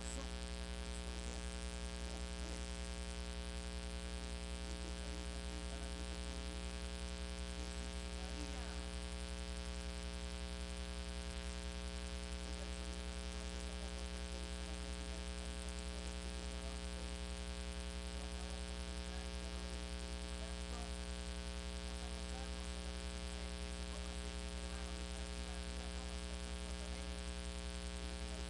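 Steady electrical mains hum with a buzz, unchanging throughout.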